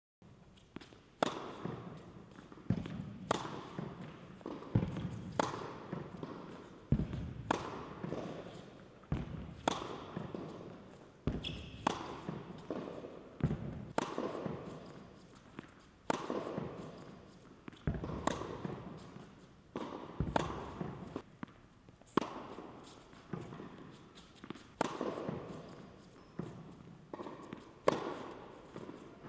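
Tennis rally on an indoor hard court: sharp pops of the ball off the strings and its bounce on the court, coming in pairs about every two seconds, each ringing briefly in the hall.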